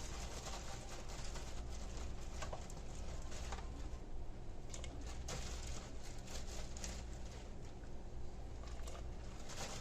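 Raw shrimp being dropped into a pot of boiling seasoned water: scattered splashes and plops at irregular moments over a steady low hum.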